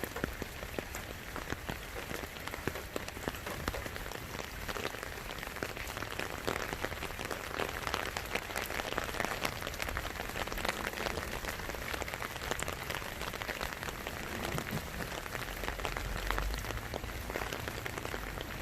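Steady rain falling, a dense, even hiss of many small drops striking nearby surfaces.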